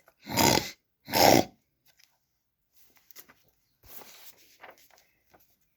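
Two short, loud snorts, a person imitating a pig, followed by faint scattered small noises.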